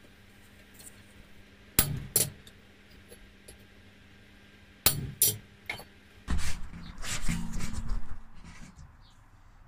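Hammer striking a chisel into steel bar stock: two quick ringing blows about two seconds in, two more about five seconds in, then a longer stretch of metal clattering and scraping as the chisel and workpiece are shifted.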